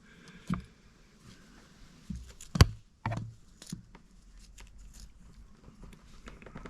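Scattered clicks and taps of the small parts of a dismantled car wiper switch being handled, with one sharp knock about two and a half seconds in.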